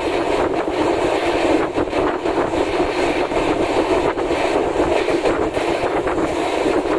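Passenger train running along the track with a steady rumble, its wheels clicking irregularly over the rail joints.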